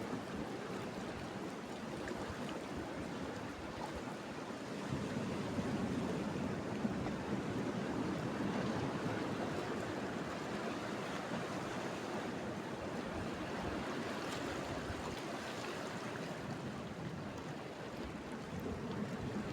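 Sea surf washing steadily on the shore, swelling a little louder about five seconds in.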